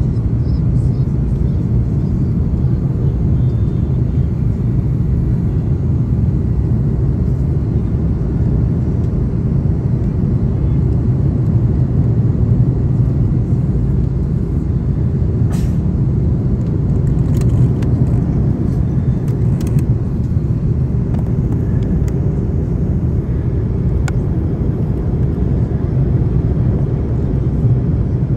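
Airliner cabin noise heard at a window seat beside the wing engine: a steady, even low rumble of jet engine and airflow during the descent to landing, with a few faint ticks midway.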